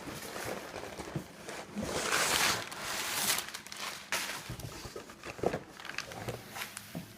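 Cardboard box and packaging being pulled off and handled: scraping and crinkling, with a few knocks.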